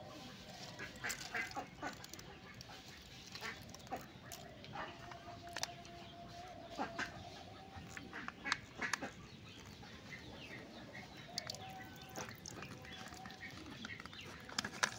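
Thin clear plastic cups being handled, giving a scatter of light crackling clicks, with birds, most likely poultry, calling in the background.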